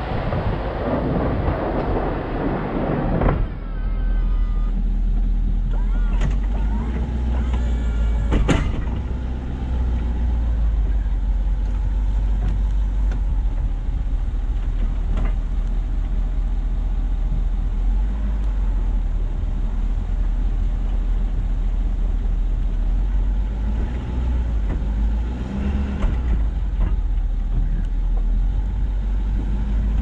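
Plow truck driving, with a steady low rumble of engine and road noise. There is a louder rushing noise over the first three seconds or so and a single sharp knock about eight and a half seconds in.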